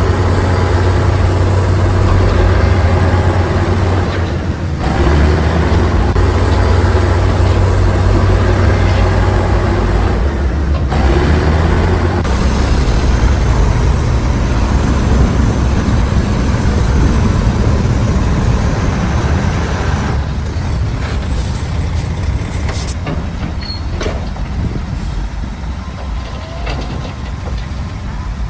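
Heavy diesel construction machinery running steadily with a low engine drone. Scattered knocks and rattles join in during the last third.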